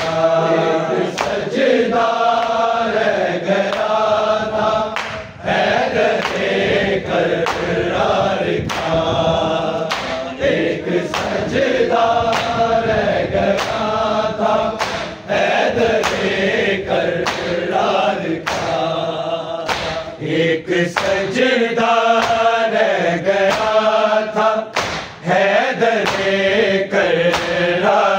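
Male voices chanting an Urdu noha, the sung lines rising and falling, over a steady beat of sharp strikes.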